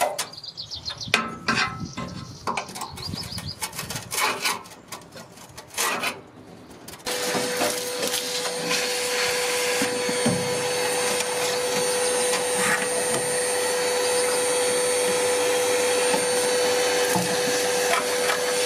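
Irregular clicks, knocks and scraping from hand work on the van's sheet metal. About seven seconds in, a heat gun switches on and blows steadily with a constant whine and hiss, used to soften body adhesive so it can be scraped off.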